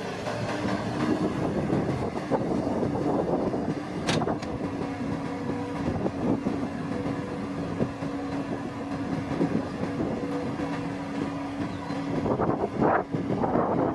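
Farm harvesting machine's engine running steadily with a constant hum, scattered clicks and rattles, growing louder and noisier near the end.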